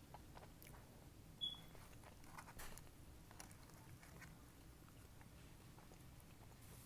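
Faint close-up eating sounds of loaded fries being bitten and chewed: scattered soft crunches and wet clicks, with one short high squeak about one and a half seconds in.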